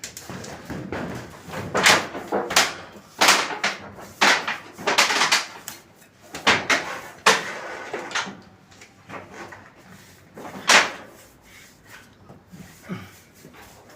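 A run of irregular rough scrapes and knocks, each lasting under half a second, coming thickly at first and thinning out, with one loud one near the end.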